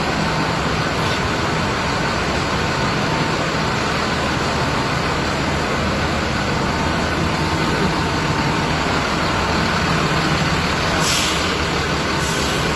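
Tuzobús city bus running steadily at close range after its crash, with two short hisses of air near the end.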